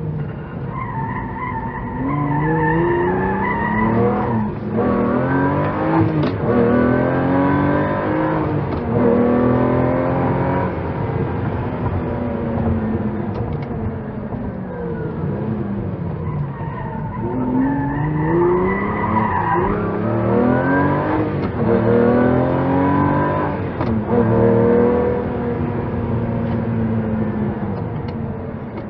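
Lamborghini engine accelerating hard through the gears, its pitch climbing and dropping back at each shift, over and over.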